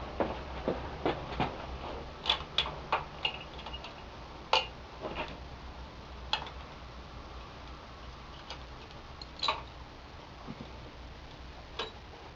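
Light metallic clicks and clinks from hands handling the pushrod tubes and bungee-cord hooks on a Harley-Davidson Ironhead Sportster engine, as the raised pushrod covers are hooked in place. The clicks come quickly and irregularly for the first few seconds, then only now and then.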